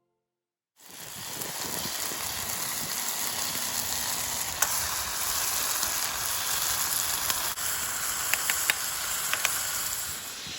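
Food frying in hot oil in a pan: a steady sizzle starting just under a second in, with a few sharp pops and crackles.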